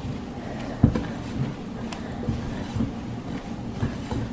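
Hands mixing and kneading a crumbly dough of flour, oil and water in a glass bowl: irregular soft squishing and rubbing, with one sharp knock about a second in.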